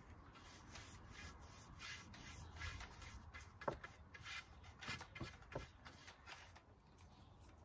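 Paintbrush rubbing raw linseed oil onto a rough pallet-wood plank: faint, repeated scraping strokes, with one light tap about halfway through.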